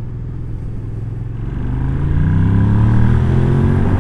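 Suzuki SV650S V-twin engine running under way, then accelerating, its note rising and growing louder from about a second and a half in. Its carburettors are badly out of sync.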